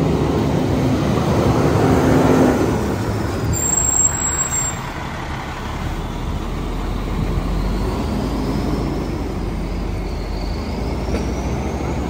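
Fire truck's diesel engine passing close by, louder for the first two seconds, then settling into a steady low idling rumble, with a short sharp sound about four seconds in.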